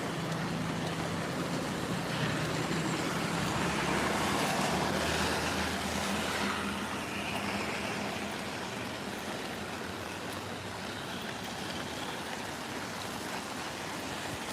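Road traffic on a rain-wet street: a steady hiss of tyres on wet pavement with a low engine hum, swelling as a vehicle passes in the first half and then easing off.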